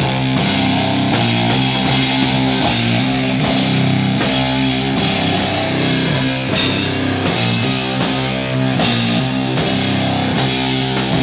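Live hardcore rock band playing loud: electric guitar through a tube amp stack over a full drum kit, with two big cymbal crashes in the second half.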